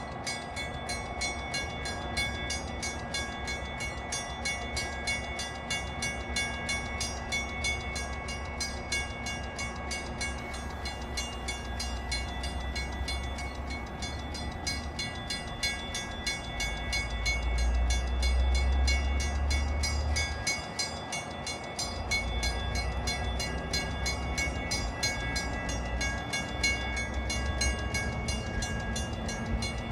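Railroad sounds at a commuter station: a rapid, evenly repeating high ringing over a steady low rumble, with wind buffeting the microphone, strongest a little past halfway.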